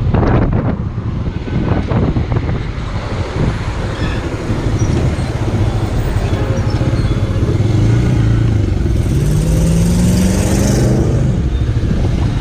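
Motorcycle riding in city traffic, its engine running steadily under wind buffeting the microphone; about eight to ten seconds in, an engine rises in pitch as it accelerates.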